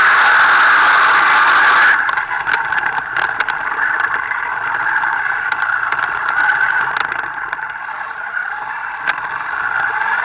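Thunder Tiger RC buggy's motor running at speed, heard from on board as a steady high-pitched whine that wavers slightly and rises near the end. A loud hiss fills the first two seconds, then gives way to scattered clicks and rattles.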